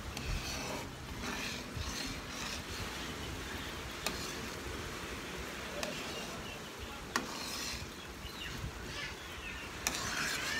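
A metal ladle stirring and scraping a thick, simmering glutinous-rice mixture in a wide metal pan, with a few sharp clicks along the way.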